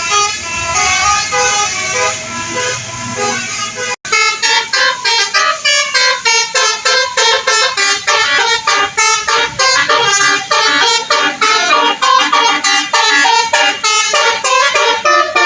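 Bus telolet horn, a multi-tone musical air horn, playing a fast run of stepping notes like a tune. A low rumble lies under the first few seconds, and the sound cuts off abruptly about 4 seconds in before the horn tune carries on.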